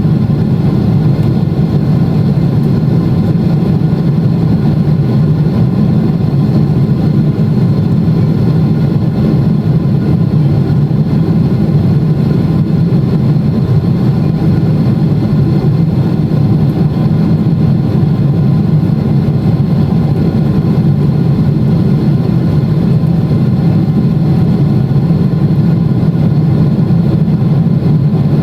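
Steady low drone of a Boeing 777-300ER's GE90-115B jet engines and rushing air, heard from inside the passenger cabin during the climb after take-off. It holds an even, unchanging level throughout.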